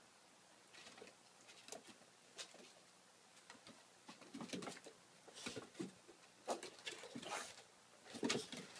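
Two small dogs, a Shih Tzu and a Chihuahua, play-fighting on wooden decking: claws tapping and scrabbling on the boards, with short bursts of soft growling that grow busier from about four seconds in, the loudest near the end.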